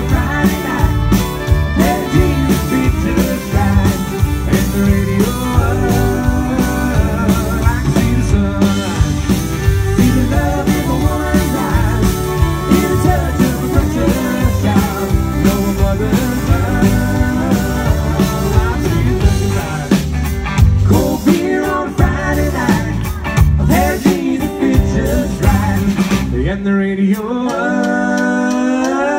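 Live country band playing an instrumental passage: electric guitars, bass, drums and keyboard. Near the end the drums drop out and a sliding note rises.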